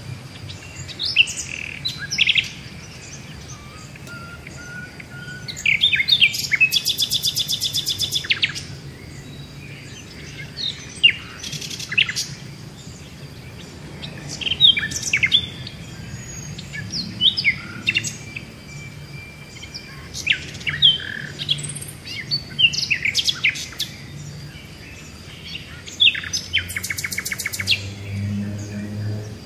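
Birds chirping and calling in short, sharp notes, with a fast trill of about two seconds heard twice, a few seconds in and again near the end. A steady low hum runs underneath.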